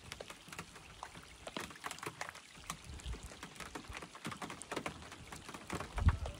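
Small waves lapping and slapping against a plastic kayak's hull, many small irregular splashes, with a louder low knock near the end.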